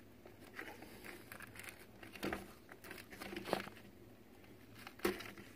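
Faint rustling and light clicks of hands handling things, with a few louder taps about two, three and a half and five seconds in.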